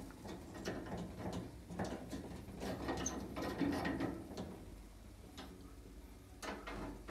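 Irregular metallic clicks and rattles from a rotisserie spit and its fittings being handled inside a gas oven.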